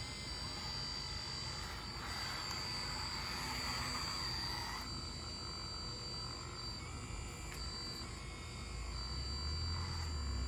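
Small electric motors of a radio-controlled Bobcat skid steer running as it digs dirt: a steady high whine that shifts in pitch now and then as the machine moves. A low rumble comes in near the end.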